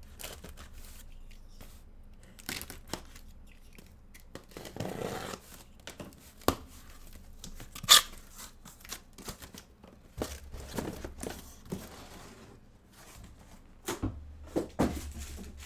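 Sealed trading-card packaging being torn open and handled: plastic wrap and cardboard tearing and crinkling, with scattered taps and scrapes and one sharp knock about eight seconds in.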